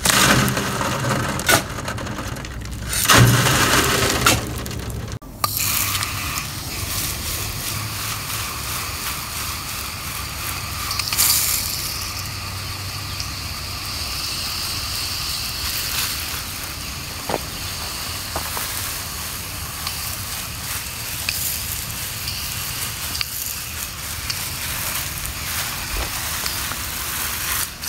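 Soil and small rocks shaken through a wooden-framed sifting screen onto a pile, with scraping and a few knocks, stopping abruptly about five seconds in. Then a garden hose sprays water onto dry mulch and soil, a steady hiss.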